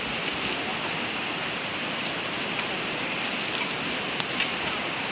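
Steady rushing outdoor background noise, with a short high chirp about three seconds in and a few faint clicks near the end.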